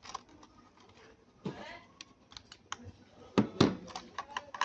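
Plastic toy parts being handled: a run of light clicks and taps, with two loud knocks close together about three and a half seconds in.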